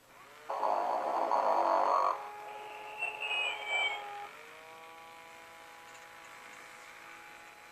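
Tyco Sing & Snore Ernie toy playing its recorded snore through its small speaker: a rasping snore lasting about a second and a half, then a long steady tone as it breathes out.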